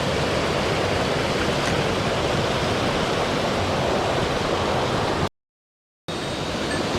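Steady rush of a fast mountain stream over rocks. The sound cuts out completely for under a second about five seconds in, then resumes unchanged.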